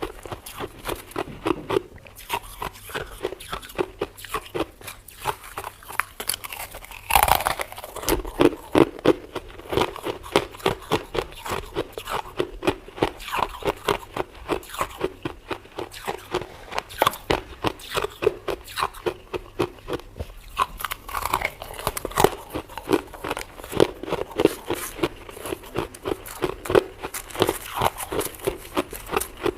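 Freezer frost being bitten and chewed: a steady run of crisp crunches, two or three a second.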